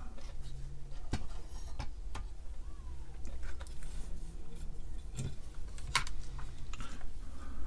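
Scattered clicks and knocks as the Atari 1050 drive's circuit board is handled, turned over and set down on the workbench, over a low steady hum.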